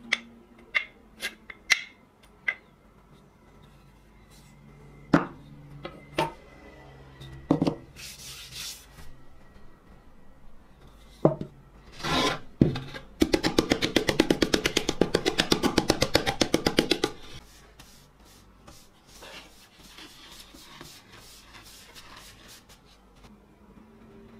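Wooden hand plane body being handled on a workbench, with a few knocks and clicks, then rubbed on sandpaper to flatten its sole. The sanding comes as a burst of rapid, even strokes lasting about four seconds midway, followed by quieter rubbing.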